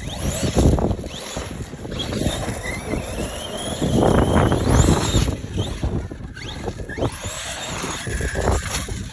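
ARRMA Fire Team 6S RC car's brushless motor whining up and down in pitch as it speeds up and slows, over a rough rushing noise that swells and falls.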